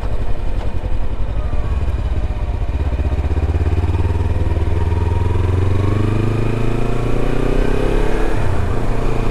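Kawasaki Versys X 300's parallel-twin engine running under way. Its pitch climbs steadily from about halfway through as the bike accelerates, then dips near the end.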